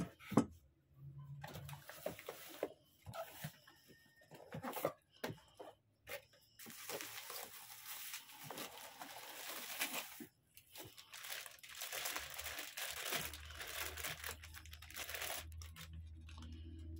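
Plastic bag and bubble wrap crinkling and rustling as a guitar effects pedal is unwrapped, after a sharp knock right at the start and a few scattered clicks and knocks of things being handled.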